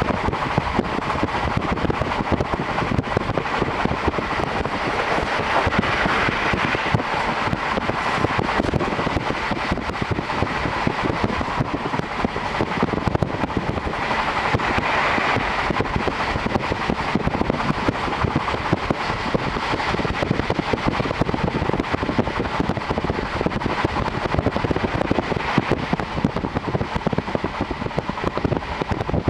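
Steady running noise of a JR Hokkaido Series 711 electric train at speed, heard from inside the car through an open window: wheels on the rails and rushing air.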